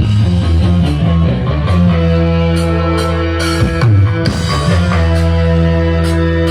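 Instrumental passage of a rock song: guitar and drums over sustained bass notes, with no singing.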